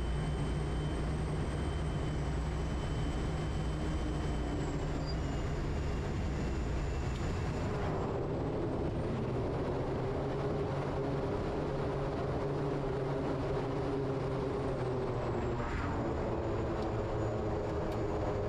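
A Quest Kodiak's single PT6A turboprop engine and propeller running steadily through the landing flare, touchdown and rollout on a grass mountain airstrip. A high turbine whine rises in pitch about eight seconds in and falls back a few seconds before the end as power is changed on the ground.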